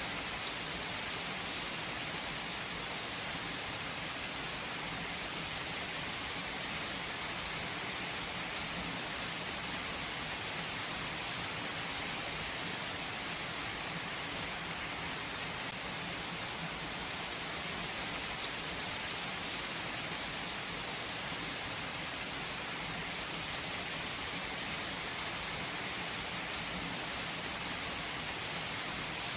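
Steady rain falling and pattering on surfaces, an even hiss with no change in strength.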